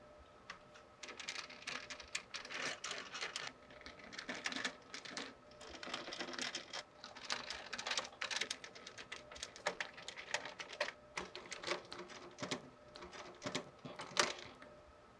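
Hands handling computer parts: a dense run of small irregular clicks, taps and rustles, loudest near the end.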